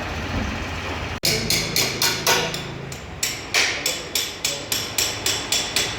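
Steady background noise that cuts off abruptly about a second in. A run of sharp hammer blows follows, about four a second, with a short pause midway.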